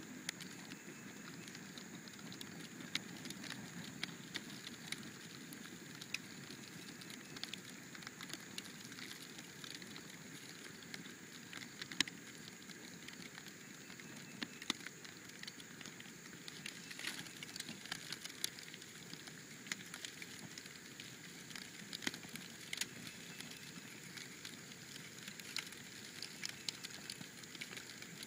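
Cardboard box burning, the flames giving off scattered sharp crackles and pops over a soft steady rush, with one louder pop about twelve seconds in.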